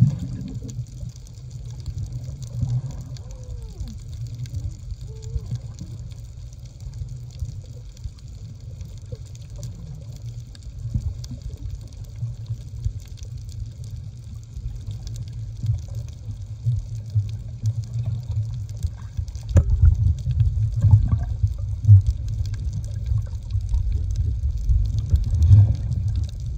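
Muffled underwater water noise recorded below the surface: a steady low rumble of moving water. It grows louder about twenty seconds in, beginning with a sharp click.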